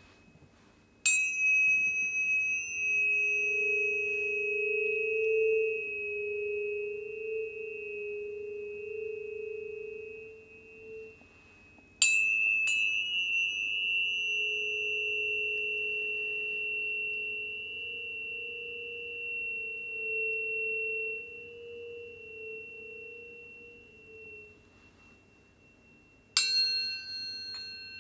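Planetary tuning forks struck three times, each strike ringing on in a long, slowly fading pure tone with a high overtone above it. The last strike, near the end, brings in a cluster of different higher tones.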